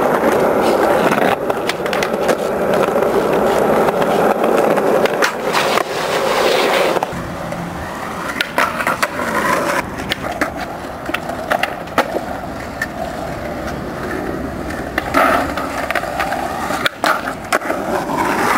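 Skateboard wheels rolling loudly over smooth pavement, with sharp clacks of the board snapping and landing through tricks. The rolling is loudest in the first half and drops a little about seven seconds in.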